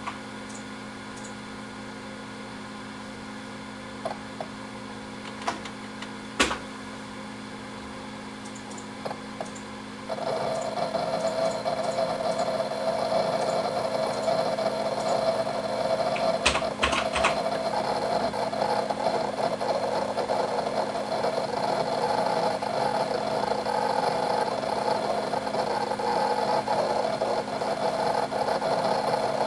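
Four WD Black 4 TB 7200 rpm hard drives (WD4004FZWX) spinning with a steady hum and a few single head-seek clicks. About ten seconds in, a louder, continuous rapid chatter of head seeks starts up, the drives busy reading or writing.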